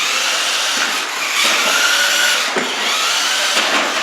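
Toy remote-control monster truck's electric motor and gears whining as it drives, the pitch rising and falling with the throttle.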